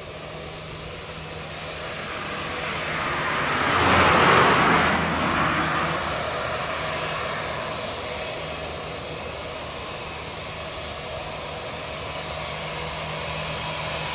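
Airbus A320's jet engines running steadily at taxi, a rushing sound with faint steady tones through it. A louder rushing swell builds and peaks about four seconds in, then eases off.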